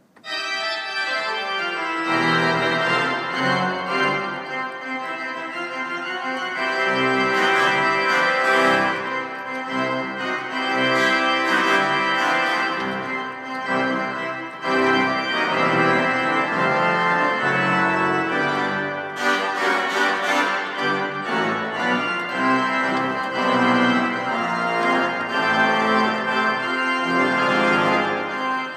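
Instrumental intro theme music with held keyboard-like chords, starting abruptly at the very beginning.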